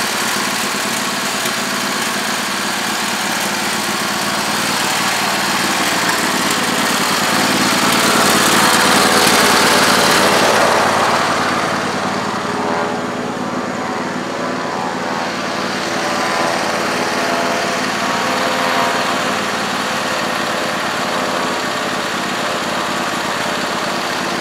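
Husqvarna YTH2448 lawn tractor's Briggs & Stratton engine running steadily at a constant speed. A broad rushing noise swells and fades about ten seconds in.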